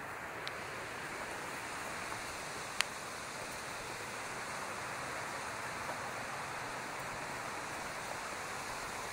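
Steady rushing of a rocky mountain stream, with a sharp click about three seconds in.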